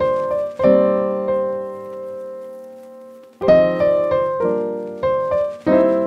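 Background music of slow piano chords, each struck and left to ring out. One chord, struck just after the start, fades over nearly three seconds before the next ones follow about a second apart.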